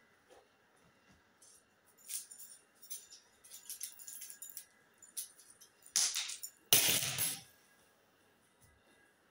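Handling noises as a person moves about a small room: scattered light clinks and clicks, then two louder rustles about six and seven seconds in.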